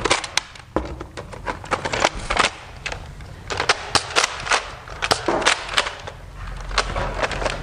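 Nerf foam-dart blasters firing: an irregular run of sharp pops and plastic clacks, coming in clusters several times.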